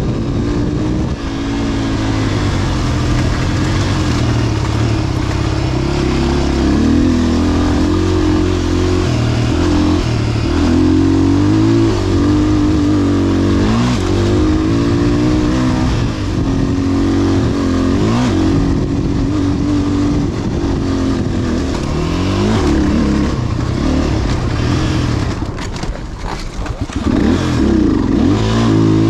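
Petrol dirt bike engine revving hard and falling back again and again, with gear changes, as it is ridden around a motocross track. The engine drops off briefly near the end, then climbs again.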